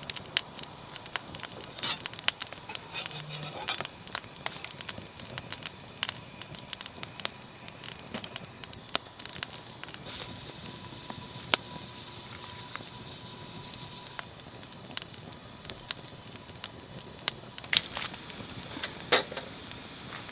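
Wood fire crackling, with irregular sharp pops of varying loudness over a low hiss.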